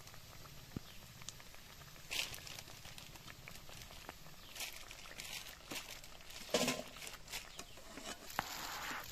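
Hot oil sizzling in a dark iron wok as pakoras deep-fry, with short scrapes and knocks of a steel slotted ladle against the pan as they are lifted out; the loudest scrape comes about two-thirds of the way through.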